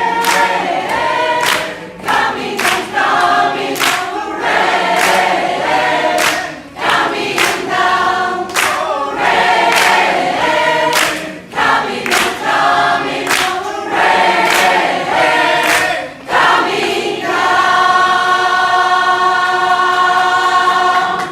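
Choir singing in harmony, with sharp percussive hits keeping a regular beat. About four seconds before the end the beat stops and the choir holds a long final chord.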